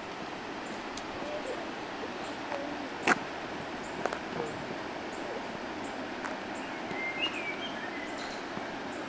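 Steady rush of falling water from a waterfall, with a single sharp knock about three seconds in and a few short high chirps near the end.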